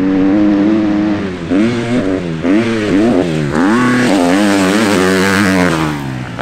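Motocross dirt bike engines revving hard, the pitch climbing and dropping again and again as the throttle is opened and shut. A second, higher-pitched engine note joins about three and a half seconds in.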